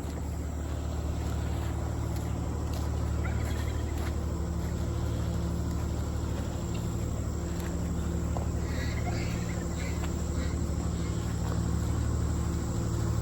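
An engine running steadily at low revs, a deep even hum that builds slightly over the first few seconds and then holds.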